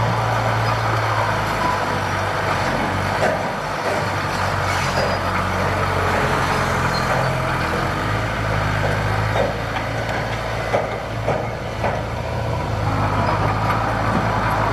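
Heavy earthmoving machine's diesel engine running steadily, with a few scattered knocks and clatters over it.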